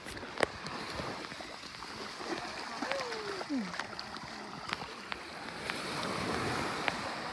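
Waves washing on a sandy shore, the wash swelling about six seconds in, with faint voices and one short falling vocal sound near the middle.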